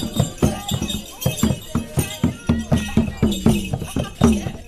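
Background music with a quick steady beat of percussion strokes, about four a second.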